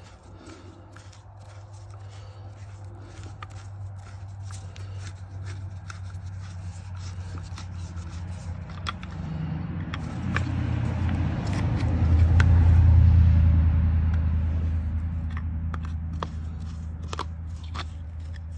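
Small clicks and scrapes of a screwdriver backing screws out of a shore-power cord plug to open its housing. Under them a low rumble swells to its loudest about twelve seconds in and then fades, as a vehicle passes.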